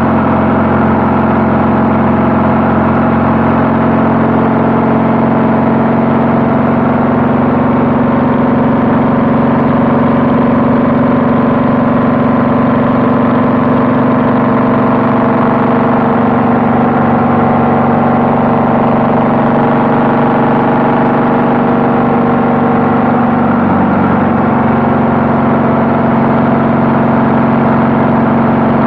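Honda Valkyrie's flat-six engine running steadily through Cobra 6-into-6 exhaust pipes while riding, its pitch dipping briefly about three-quarters of the way through.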